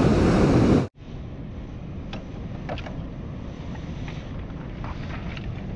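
Wind rushing over the microphone, loud at first and cut off abruptly about a second in, then a steadier low rumble of wind with a few faint clicks.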